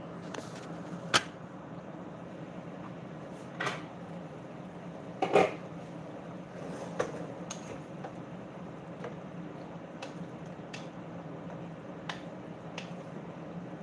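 Cooking-utensil sounds: a wooden spatula stirring in a pan on a gas stove, with a few sharp knocks and clicks of utensil and cookware, the loudest about five seconds in, over a steady low hum.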